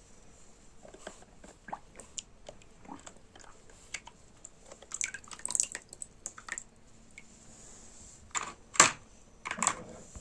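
Irregular small splashes, drips and plastic knocks as toy vehicles are washed in water, with the loudest splashes about two thirds of the way in and again near the end.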